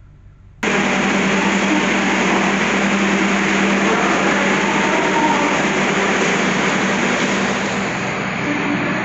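Passenger train carriage noise in the gangway between cars: a loud, steady rushing rumble with a low steady hum, starting abruptly about half a second in.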